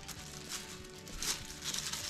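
A small clear plastic accessory bag crinkling in the hands in short rustles, over quiet background music.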